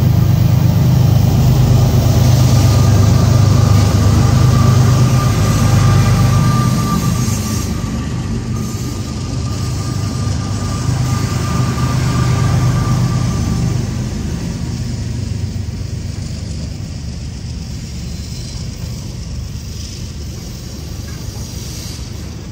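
Diesel-electric freight locomotives of a five-unit CSX consist passing close by, their engines a heavy, loud drone for the first several seconds, with a thin steady whine through the middle. The engine sound then fades gradually as the locomotives move on.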